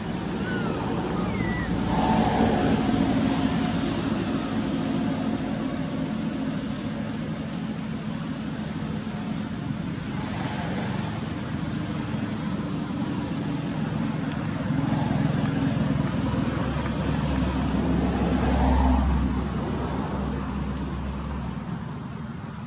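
Motor vehicle traffic: steady engine and tyre noise from passing cars. It swells about two seconds in and again later, with a deep rumble near the end.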